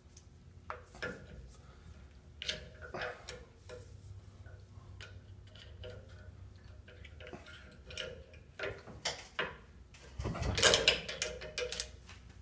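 Scattered light metal clicks and scrapes of a screwdriver prying at the clamps on a tie-rod adjusting sleeve held in a bench vise, with a louder burst of tool clatter near the end.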